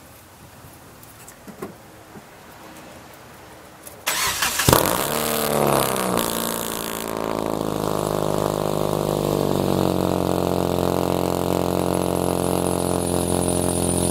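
Hyundai Tiburon cold start: after a few faint clicks, the engine cranks and catches about four seconds in with a brief flare of revs. It then settles into a fast cold idle that slowly drops and steadies. The exhaust is very loud because it is leaking and due to be welded, and a high whine comes in near the end, which the owner puts down to a noisy new pulley.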